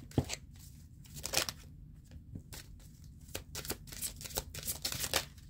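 Deck of oracle cards being shuffled by hand: a string of irregular soft card flicks and slaps, busier near the end.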